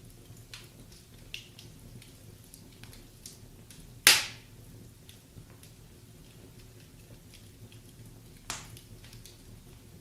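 Wood fire crackling in a fireplace: scattered small snaps and ticks, with one loud pop about four seconds in and another near the end.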